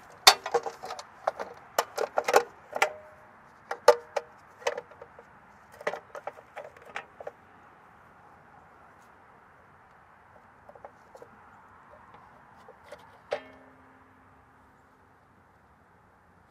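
Sheet-metal AC disconnect box and its hinged cover clanking and rattling as it is handled against a brick wall and a level is set on its side: a quick run of sharp metallic clanks over the first seven seconds or so, then a few light ticks and, near the end, one last clank that rings briefly.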